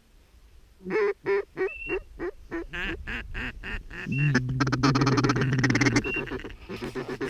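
Ducks quacking in a quick series of repeated calls, starting about a second in, with brief high squeaky notes mixed in. The calling thickens into a dense, loud stretch from about four to six seconds.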